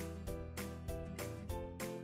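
Background music: an instrumental track with notes struck at a steady, quick pulse.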